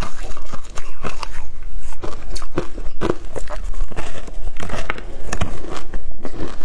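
Biting and chewing a frozen matcha ice block: an irregular run of sharp, loud ice crunches and cracks as it breaks between the teeth.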